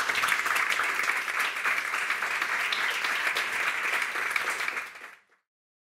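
Audience applauding with steady, dense clapping that falls away and cuts off about five seconds in.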